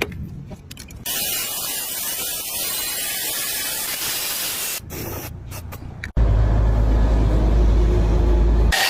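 Compressed air hissing steadily from an air tool for several seconds, then, after an abrupt cut, a loud low rumble with a lighter hiss over it for the last few seconds.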